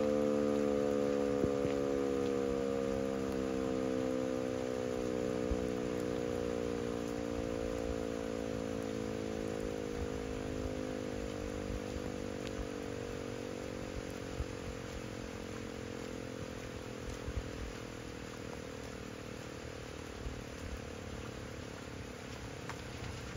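Erick Fire Siren, a rotating outdoor warning siren, winding down at the end of its noon test blast. Its chord of several tones slowly falls in pitch and fades.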